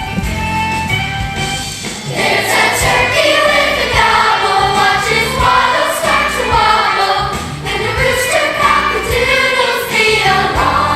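Musical-theatre number: an ensemble of young voices singing together over instrumental accompaniment, the voices coming in about two seconds in.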